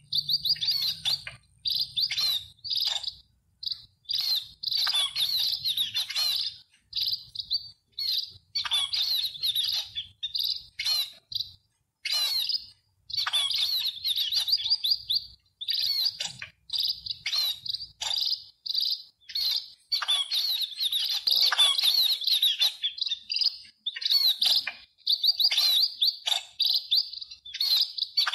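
Small birds chirping rapidly: runs of quick, high chirps broken by short pauses, going on without letup.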